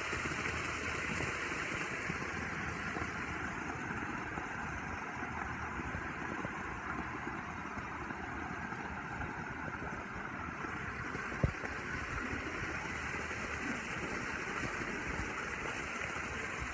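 Steady splashing rush of a backyard pool waterfall, with one brief knock about eleven seconds in.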